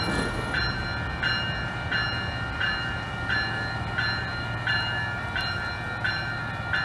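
Railroad grade-crossing warning bell ringing in an even rhythm, about three strikes every two seconds, over the steady low rumble of an Amtrak diesel locomotive moving slowly through the crossing.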